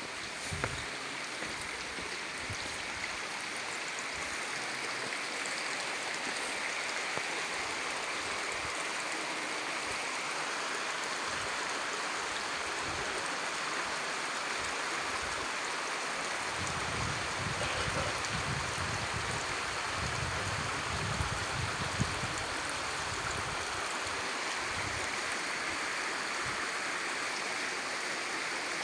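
Shallow stream rushing steadily over stones and gravel. Low rumbles run through the middle stretch, a little past halfway.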